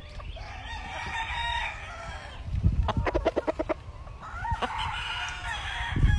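Rooster crowing twice, each crow a long call that rises and falls, with a quick run of short clucks between the two crows.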